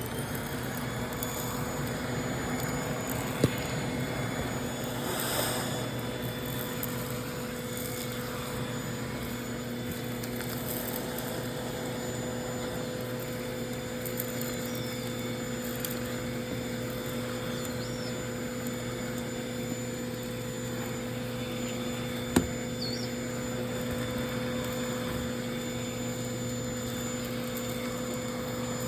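Household vacuum cleaner running steadily, its motor giving a constant hum. Two sharp knocks, one a few seconds in and another about three-quarters of the way through.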